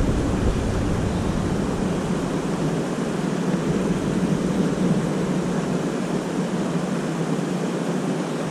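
A rushing mountain stream: a steady, even rush of water. A low rumble beneath it fades out about three seconds in.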